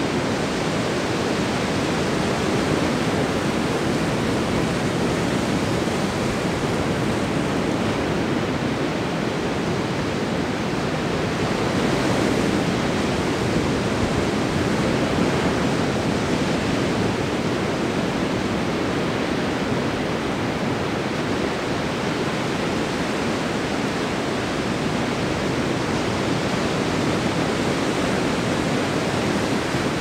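Ocean surf breaking on a beach: a continuous wash of wave noise that swells a little about halfway through, with no single crash standing out.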